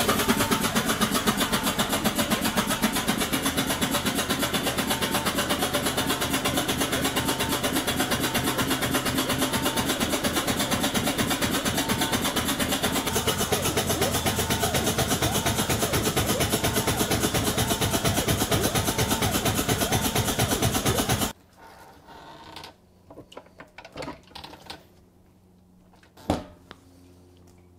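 Air-powered ARO pump of a spray etcher running, driving hot ferric chloride etchant through the spray nozzles inside the chamber: a loud, rapidly pulsing hiss that follows the pump's back-and-forth piston strokes. It cuts off suddenly about 21 seconds in, leaving only a few faint clicks and one knock.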